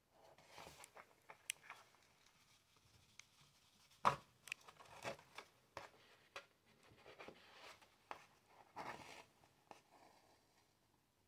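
Faint scratching and rustling of a darning needle and yarn being drawn through thick fine art paper, with scattered light clicks; the sharpest click comes about four seconds in.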